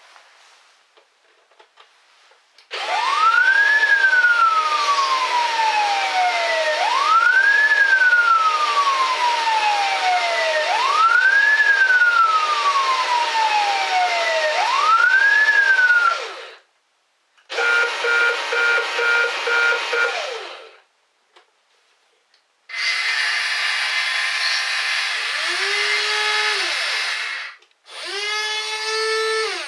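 A toy fire truck's electronic siren wails four times through a small speaker, each wail rising quickly and falling slowly. A short pulsed electronic beeping follows. Then small electric motors whir as the RC ladder truck raises its ladder, the pitch dropping and rising as the load changes.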